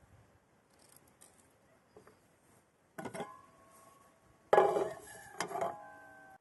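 A large aluminium cooking pot clanks three times as quince slices are laid into it, the second knock the loudest, and the pot rings on with clear metallic tones after each.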